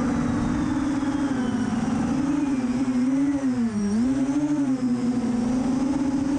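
FPV racing quadcopter's brushless motors and propellers whining in flight, the pitch rising and dipping as the throttle is worked.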